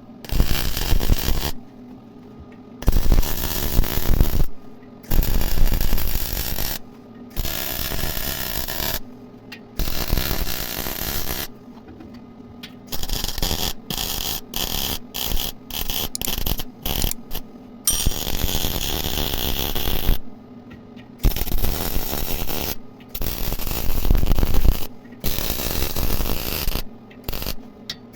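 Welding arc crackling in a string of short bursts, each about one to two seconds with short pauses between and a run of quicker ones midway: tack welding steel profiles together.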